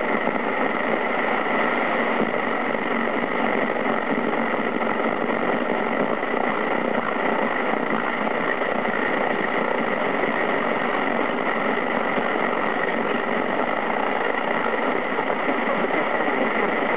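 Radio jamming interference heard through a receiver's speaker: a steady buzzing noise with a few steady tones running through it.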